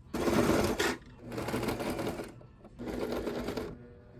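Domestic electric sewing machine stitching in three short runs of about a second each, stopping briefly between them; the first run is the loudest.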